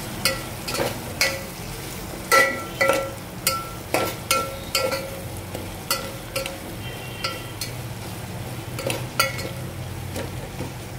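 A steel spoon scraping and knocking against an aluminium pot while stirring onions and spices frying in oil, over a steady sizzle. The knocks come about twice a second, each with a short metallic ring from the pot, and grow fewer in the second half.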